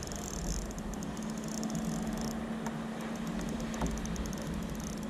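Fishing reel ticking with faint, quick clicks while a hooked bigfin reef squid pulls on the line. A high fizzing in the mix cuts off about two seconds in, over a steady low hum and water hiss.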